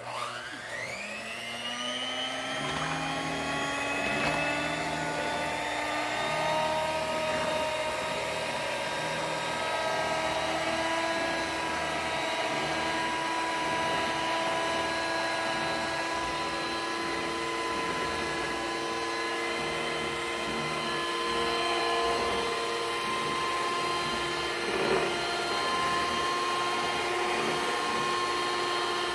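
Handheld electric mixer starting up with a whine that rises over about a second, then running steadily as its beaters whip egg whites into foam.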